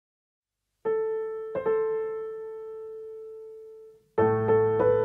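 Solo piano music: two single notes struck, ringing and slowly fading, then after a short break about four seconds in, fuller chords with low bass notes.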